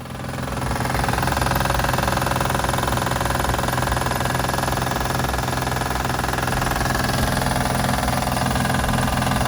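2006 Acura TL Type-S 3.5-litre V6 idling, fading in over the first second, with a fast light ticking that sounds like a valve lifter tick. The noise comes from a failing timing belt tensor.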